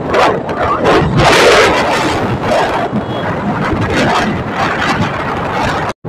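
Wind rushing over a phone microphone on a moving motorcycle, with road and engine noise beneath it. A louder gust comes about a second in.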